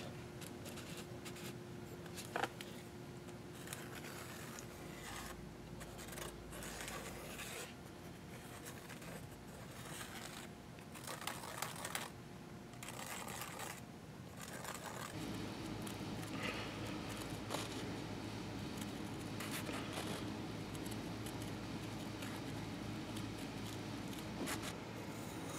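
Faint scratching of a marking pen traced around a metal hub dust cap on a sheet of gasket paper, with paper rustling, and scissors snipping through the gasket paper near the end. A steady low hum comes in about halfway through.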